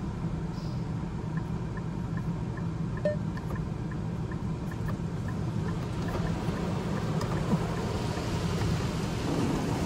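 Touch-free car wash heard from inside the car's cabin between cycles: a steady low hum with light ticking, about four ticks a second, through the middle. Near the end, water spray starts to build up.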